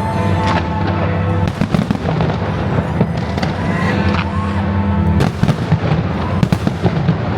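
Fireworks going off in quick succession, many sharp bangs with a few rising whistles among them.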